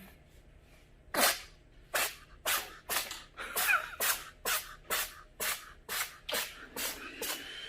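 A cat sneezing violently in a rapid fit: about a dozen short, sharp sneezes, roughly two a second, starting about a second in.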